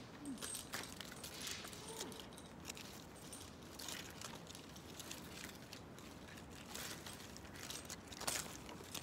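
Faint outdoor ambience under trees with scattered soft clicks and crackles, picked up by a phone lying still on the ground.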